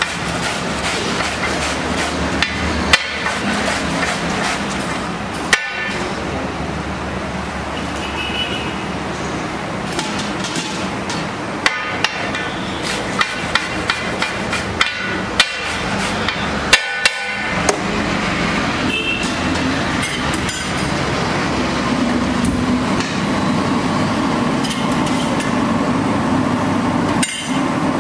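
Steel box grater rasping steadily as cabbage, then beetroot, is grated on a large iron griddle, with many sharp clicks and knocks scattered through.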